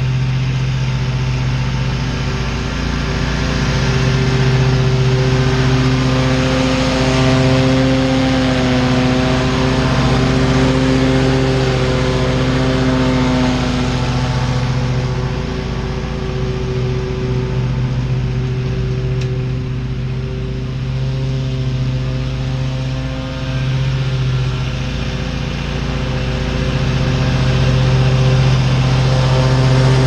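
Wright Stander stand-on zero-turn mower running at mowing speed with its cutting blades spinning, a steady engine drone whose pitch shifts slightly as it works. It grows louder near the end as the mower comes up close.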